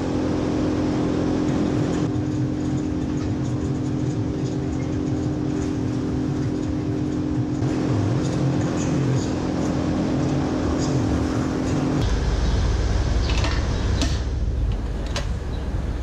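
Steady mechanical hum of milking-parlour machinery, holding several constant tones. About twelve seconds in it gives way abruptly to a deeper low rumble.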